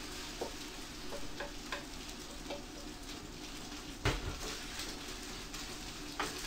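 Rice mixed with egg sizzling in hot oil in a frying pan over a gas burner, with scattered small clicks throughout. About four seconds in, a single loud knock as an empty metal mixing bowl is set down on the stainless steel counter.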